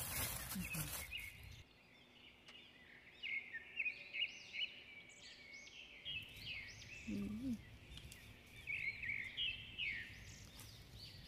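A plastic bag rustles and crinkles for the first second and a half. After that, birds chirp over and over in short, high, rising-and-falling calls.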